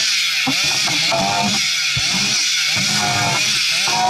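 Two-stroke chainsaw running loud while cutting into a tree, its engine speed dropping and climbing back again and again as it works the cut. The chain is dull.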